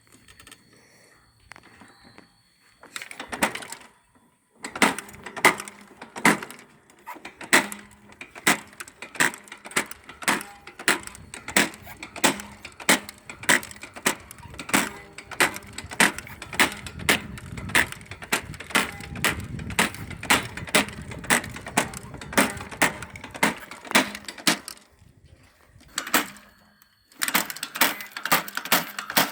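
Manual corn planter clacking as it is worked, giving a steady run of sharp mechanical clicks at about two a second, with a short pause near the end before the clicks resume.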